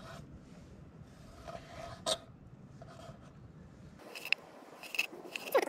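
Kitchen knife slicing a raw fish fillet on a plastic cutting board: soft scraping cuts, then a run of sharper taps of the blade on the board near the end.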